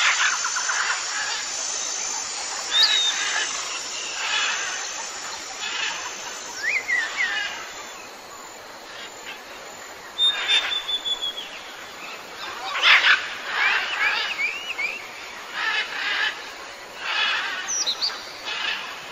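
A European hedgehog foraging in grass close to the microphone: short, irregular rustling and snuffling noises. Birds chirp in the background, with a quick run of rising chirps about two-thirds of the way through.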